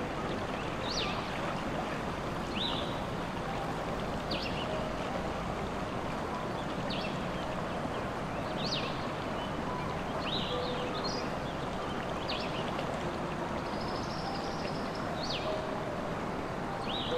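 Steadily flowing stream with small birds chirping, short high calls coming every second or two.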